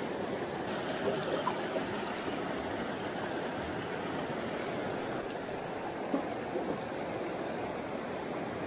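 Small mountain stream running over rocks, a steady rush of water, with a few faint clicks about a second in and again around six seconds.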